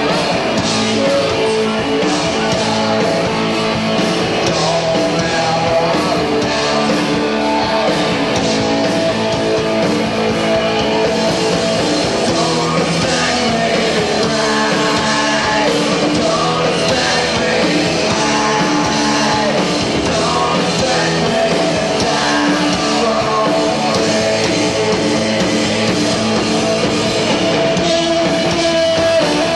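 Live rock band playing a song with sung vocals and guitar, heard through an audience cassette recording.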